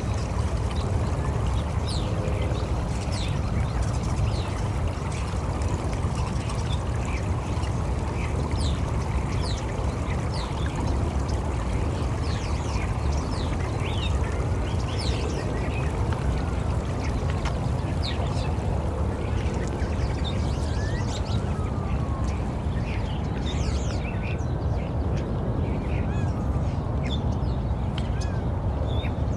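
Nature soundscape: a steady rush of flowing water with many short bird chirps and calls scattered over it.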